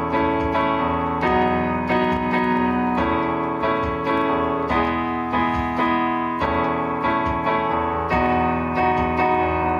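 Keyboard or electric piano playing sustained chords in an instrumental passage of a worship song, the chords changing about once a second.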